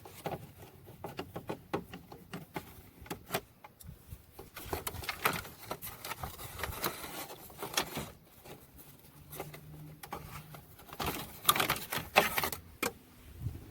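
Clicks, taps and plastic scraping of hand work on a 1998 Dodge Ram pickup's headlight housing as the last lens screw is removed and the lens is worked loose. There is a brief steady hum about nine seconds in and a louder cluster of rattles near the end.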